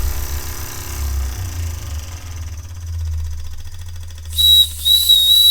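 Empire B-30 toy steam engine running under steam, then its steam whistle blows a steady high tone starting about four seconds in, with a brief break.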